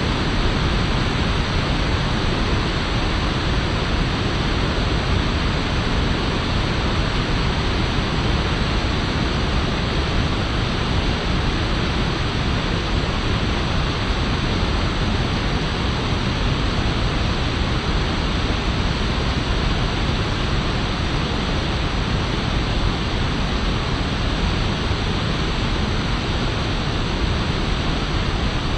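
River water rushing over rocks in a steady, loud, even roar of white water with no breaks.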